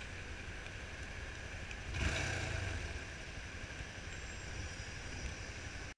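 Yamaha Fazer 250's single-cylinder engine idling among the engines of cars stopped in traffic, dulled as if heard through a sealed camera housing. There is a louder swell about two seconds in, and the sound cuts off suddenly at the end.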